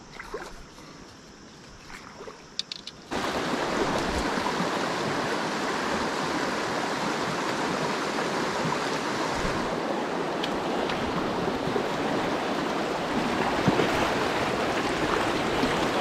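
Steady rush of shallow creek water running over rocks, starting suddenly about three seconds in. Before it, only a faint low background with a few light clicks.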